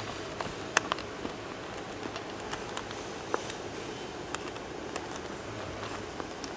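Scattered light metallic clicks and ticks as a hex key and wrench tighten nylock nuts on small screws through metal joint plates.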